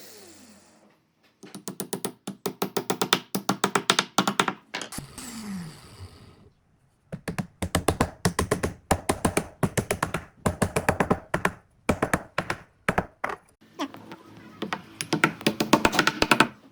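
Rapid runs of sharp knocks, several a second, coming in bursts with short pauses between them.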